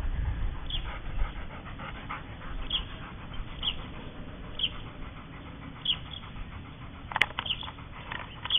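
Rottweiler panting, with faint short high chirps about once a second and one sharp click about seven seconds in.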